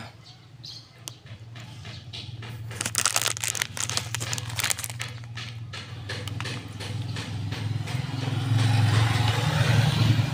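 Motorcycle engine running, a steady low hum that grows louder over the last couple of seconds. About two and a half seconds in comes a run of rapid clicking and rattling lasting a few seconds.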